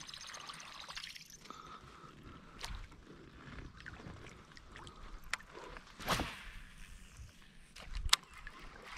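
Quiet handling sounds of a baitcasting rod and reel in a kayak: light clicks, a brief rushing noise about six seconds in, and a sharp click just after eight seconds as the rod is swept up to set the hook.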